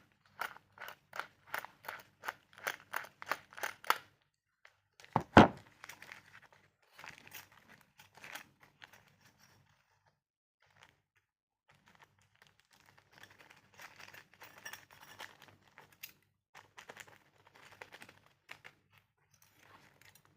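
Handling of a reciprocating saw head and its packaging. First comes a quick run of sharp clicks, about three a second. Then a single heavy thunk, the loudest sound, as something is set down. Rustling and crinkling of the packaging follows.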